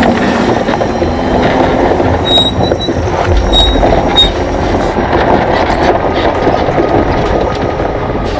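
Loaded log trailer rolling down a gravel track, heard from beneath it: tyres crunching on gravel with dense clanking and rattling from the chained wheels and trailer. A few short high squeaks come between about two and four seconds in, and a deeper rumble sets in about halfway.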